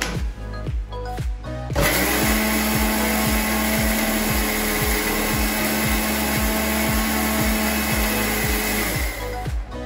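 Kitchen mixer grinder (mixie) motor running steadily as it grinds carrot, tomato, green chilli and garlic into a paste with a little water added. It starts about two seconds in and stops shortly before the end.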